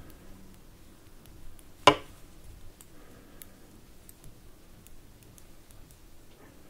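Metal double-pointed knitting needles ticking lightly against each other as stitches are knitted, with one sharp, louder click about two seconds in.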